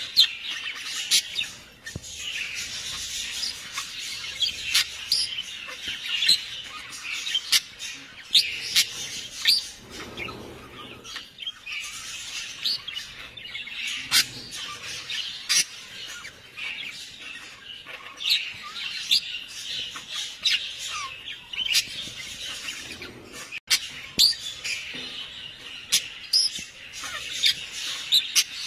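Birds chirping, with many short, quick calls overlapping in a steady chorus.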